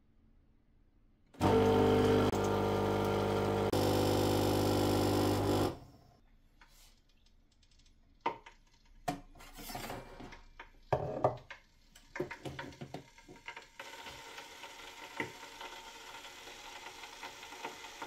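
De'Longhi espresso machine's pump humming steadily for about four seconds while it brews, cutting off abruptly; then a cup clinks and knocks several times against the machine as it is lifted off the drip tray.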